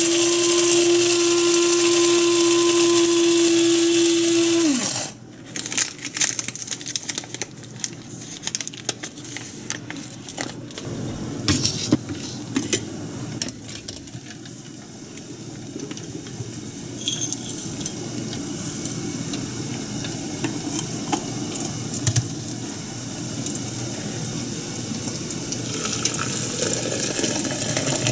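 Small electric blade coffee grinder running with a loud, steady whine for about five seconds, then cutting off. Light clinks, taps and knocks follow as the ground coffee is handled and tipped into a glass French press.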